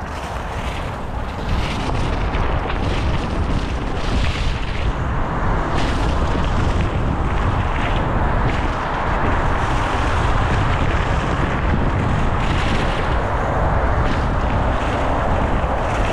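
Wind buffeting the action camera's microphone over the rolling rumble of mountain bike tyres on a leaf-covered dirt trail, growing louder about a second and a half in as the bike picks up speed.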